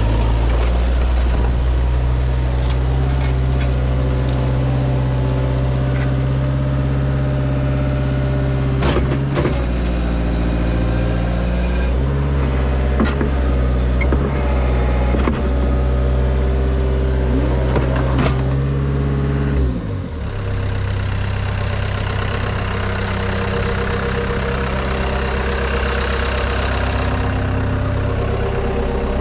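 Caterpillar C3.4 turbo diesel engine of a tracked skid steer running steadily at high revs, with a few sharp knocks and clanks in the middle. About twenty seconds in it throttles down to a lower, steady idle.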